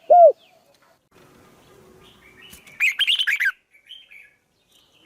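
Birds calling: a loud arched note right at the start, then a quick burst of high, falling chirps about three seconds in, with a few faint chirps around it.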